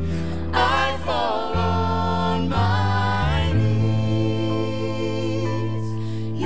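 Worship song performed live: male and female voices singing a slow, held melody over sustained keyboard chords and a low bass that moves to a new note every second or so. The voices come in about half a second in.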